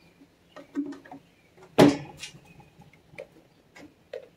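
Clicks and knocks of a cordless impact driver and its battery pack being handled, with one louder clunk nearly two seconds in.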